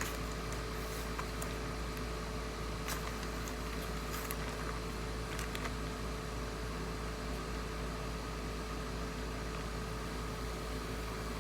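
Steady machine hum with a faint even hiss, at an unchanging level, with a few faint clicks.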